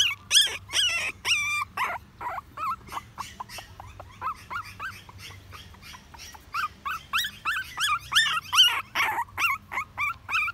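A very young puppy crying in a quick series of short, high-pitched squeaks, each rising and falling in pitch. The cries thin out around the middle and come fast again in the second half.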